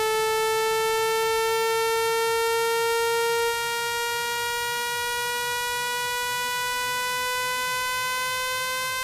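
Electronic speaker-cleaning tone: a buzzy, horn-like synthetic tone rich in overtones, rising slowly and steadily in pitch. It drops a little in loudness about three and a half seconds in.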